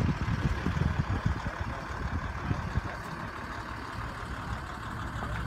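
Wind buffeting the phone's microphone: a low, uneven rumble in gusts, heaviest in the first few seconds, then settling to a steadier rush.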